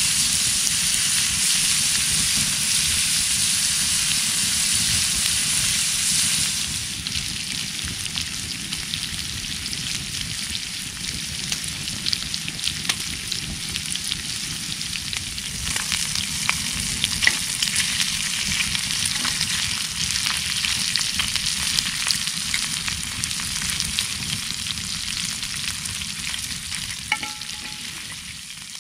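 Car tyres hissing on a wet, slushy road, with a low rumble underneath and a steady crackle of spray. A brief high tone sounds near the end.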